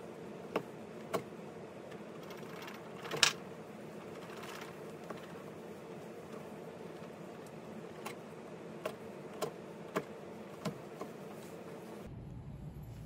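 A hand blade shaving thin strips off the edge of a piece of leather on a cutting mat: a scatter of short scrapes and clicks, with one louder, longer scrape about three seconds in, over a steady low hum.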